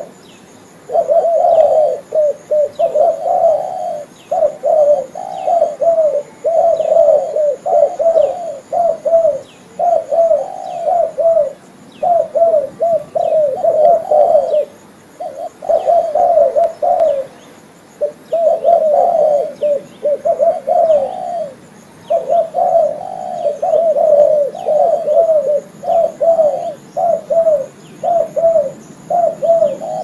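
Spotted dove cooing over and over, phrase after phrase with only a few short pauses. Faint high chirps repeat steadily behind the cooing.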